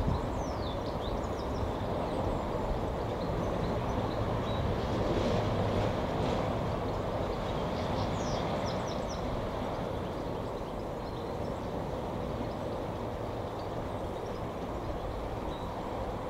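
Steady distant rumble of a Boeing 747-400 freighter's jet engines as it flies high overhead, swelling a little midway and then slowly easing. Small birds chirp briefly near the start and again about eight seconds in.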